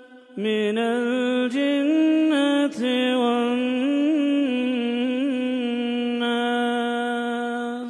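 A man reciting the Quran in a slow melodic chant, drawing out one long phrase with wavering ornaments on held notes.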